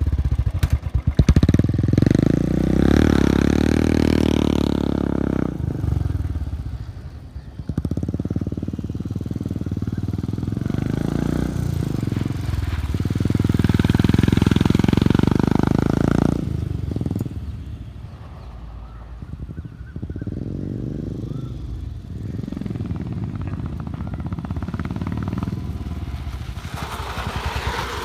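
Royal Enfield Bullet 350's single-cylinder engine running through a peashooter exhaust, giving its steady exhaust thump. The beat grows louder and fades as it is heard from different distances, loudest near the start and again in the middle.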